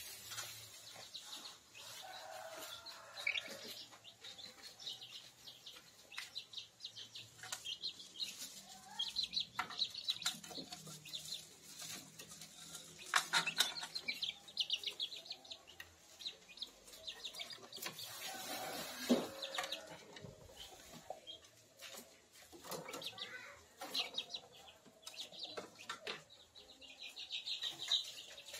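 Month-old kampung chicks peeping in quick runs of short high calls, with wing flutters and scuffling among them; the loudest flurries come about halfway through and a little after.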